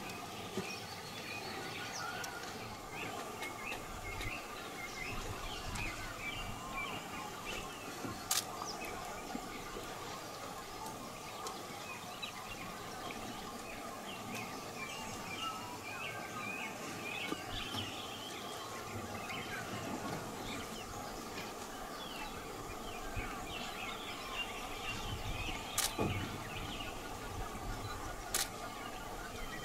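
Ambience of a rainforest clearing: many small bird chirps over a steady hum, with three sharp clicks, about 8, 26 and 28 seconds in.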